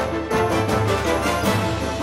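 Background music with a steady beat: an upbeat theme-style instrumental.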